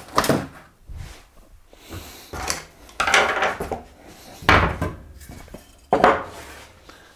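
An electric bike being turned upside down and set down: a series of separate knocks and rattling metal clatters, about one a second.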